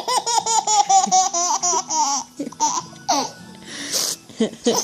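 Baby boy laughing hard: a fast string of high-pitched laugh pulses for about two seconds, then a pause and shorter bursts of laughter near the end.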